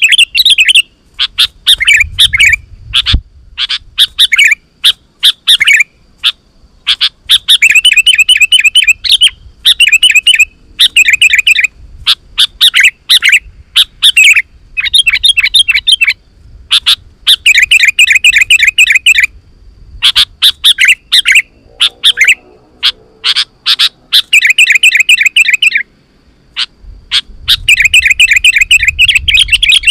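Sooty-headed bulbul (kutilang) calling loudly and excitedly: phrases of rapid chattering notes, each a second or two long, repeated with short gaps.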